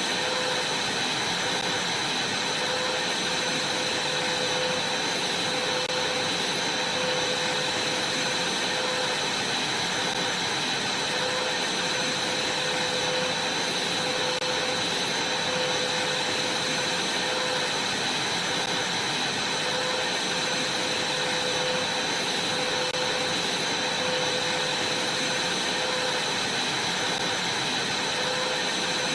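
Vacuum cleaner running steadily, its airflow hiss carrying a constant high whine.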